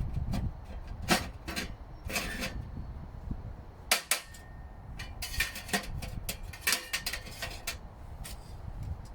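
Irregular knocks, clicks and clatter of camping gear being handled and packed away, with rustling in between; the sharpest knocks come about a second in and about four seconds in.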